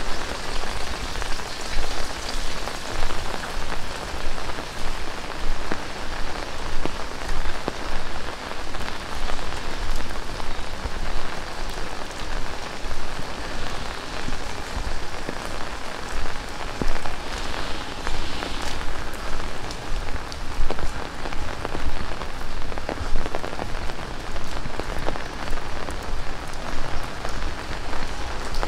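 Heavy rain falling steadily: a dense, even hiss of rain with many close individual drop impacts pattering through it.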